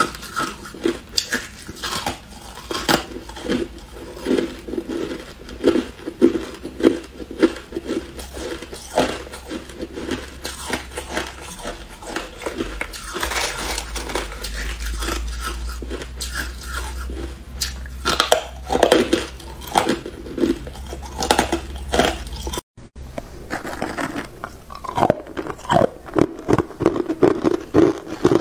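Crushed ice and ice chunks being bitten and chewed, giving a dense run of crisp cracks and crunches close to the microphone. The sound drops out briefly about three-quarters of the way through.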